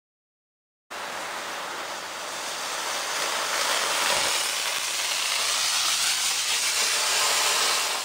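Small homemade rocket motor burning with a steady rushing hiss that slowly grows louder; it starts and cuts off suddenly.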